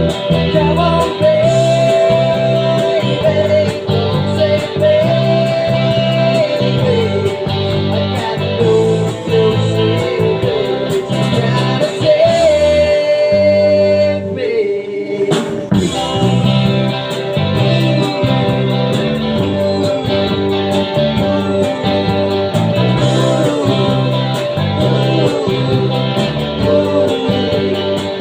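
Rock band playing: guitars over a steady bass and drum beat, with a held, sliding melody line on top. The band drops out briefly about halfway through, then comes back in.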